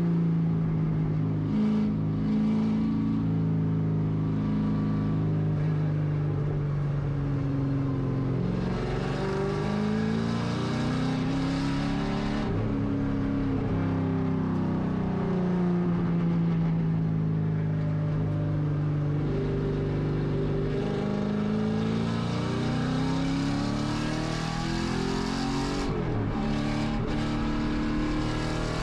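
Camaro Z/28.R race car's 7.0-litre LS7 V8 at full race pace, heard from inside the stripped cabin. The engine note climbs and drops over and over as the car accelerates, shifts through its six-speed manual and slows for corners.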